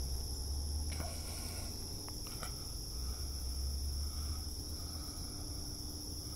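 A steady, high-pitched insect chorus, with a low rumble beneath it and a few faint clicks.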